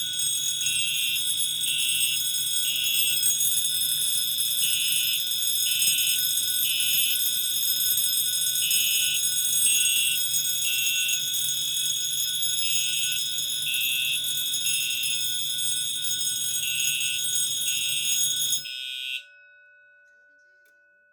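Fire alarms sounding together: a loud, steady, high-pitched alarm tone with a second tone pulsing on and off over it. Both cut off suddenly near the end, leaving a faint ring that fades away.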